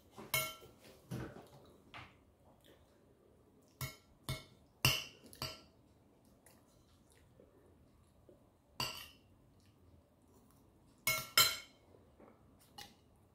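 Metal spoon clinking against ceramic bowls and plates: short, sharp separate clinks with a brief ring, coming in small groups with quiet stretches between.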